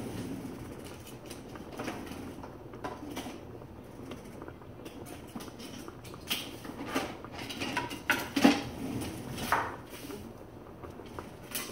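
Kitchen clatter of dishes and utensils being handled: scattered irregular clinks and knocks, busier in the second half, with the loudest knock about two-thirds of the way through.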